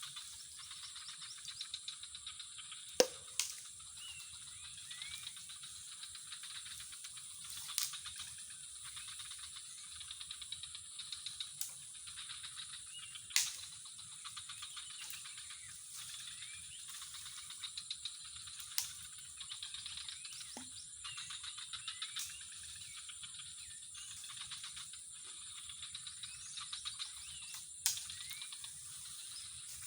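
Outdoor insect chorus: a steady high-pitched drone with many short chirping calls running through it. A few sharp clicks cut in, the loudest about three seconds in.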